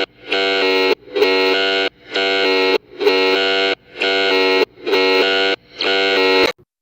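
An emergency alert tone played in reverse: seven identical electronic tone pulses about a second apart, each swelling in and cutting off abruptly.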